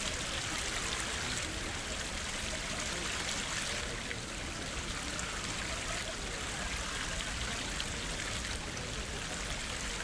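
Steady rushing and splashing of water flowing into a pond, running on without a break.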